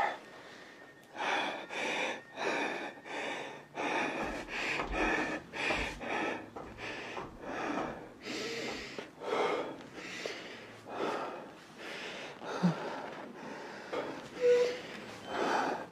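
Fast, heavy breathing close to the microphone, about two breaths a second, with a brief squeak near the end.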